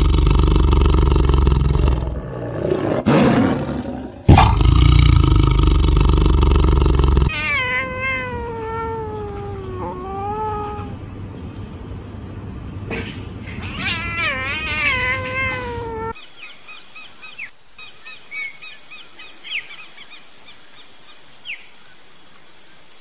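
A big cat roaring: two long, loud roars. Then two drawn-out, wavering cat-like meowing calls that fall in pitch. About sixteen seconds in, the sound changes to a quieter steady high-pitched tone with scattered short chirps.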